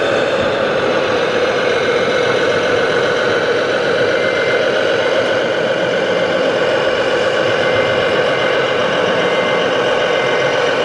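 Simulated diesel engine sound from the onboard sound module of a radio-controlled Mercedes-Benz three-axle dump truck, running steadily as the model crawls along. A faint short beeping comes and goes in the second half.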